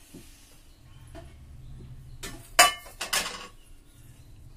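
Metal cookware clanking on a gas stove: one sharp loud clank about two and a half seconds in, followed by a shorter rattle of metal on metal.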